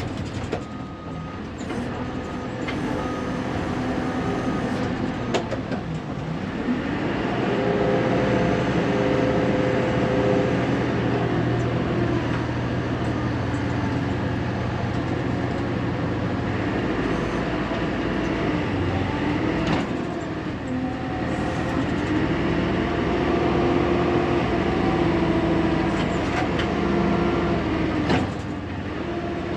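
1999 Fermec TLK760 backhoe's diesel engine running under hydraulic load while loading fill dirt, revving up about seven seconds in, easing off around twenty seconds, revving again and dropping back near the end.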